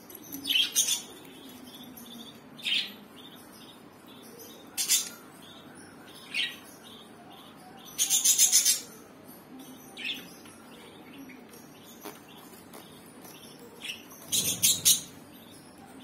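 Budgerigars chirping in short, sharp calls every second or two, with a longer rapid run of chatter about halfway through and another near the end.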